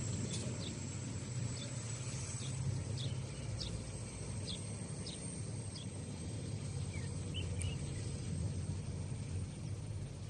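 Low steady rumble of a truck's diesel engine running, with a series of short high bird chirps over it in the first several seconds.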